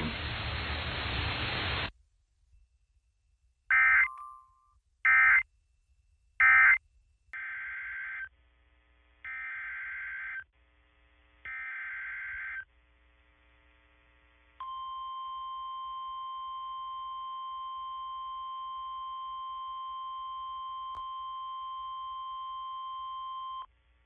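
NOAA Weather Radio Emergency Alert System alert starting: radio hiss that stops about two seconds in, three short loud data bursts, then the three screeching SAME header bursts, then the steady 1050 Hz warning alarm tone held for about nine seconds before it cuts off.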